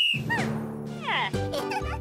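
Upbeat children's cartoon music starting up, with a few short falling sound effects early on and a regular beat coming in about a second and a half in.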